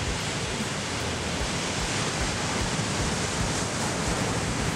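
Breaking ocean surf, heard as a steady, even wash of noise, with a low rumble of wind on the microphone.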